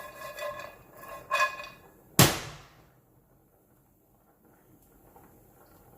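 Metal pots and pans clanking on the stovetop, with a ringing tone after the knocks, and one sharp, loud clank about two seconds in.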